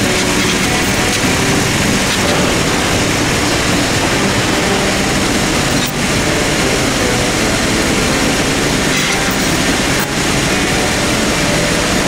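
Small diesel compact tractor engine running steadily while it drags a heavier tractor, whose clutch is stuck, on a chain.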